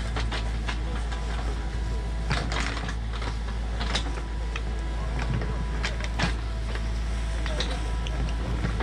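Sany mini excavator's diesel engine running steadily under digging load, with short sharp knocks and clatter as the bucket scrapes through stony dirt.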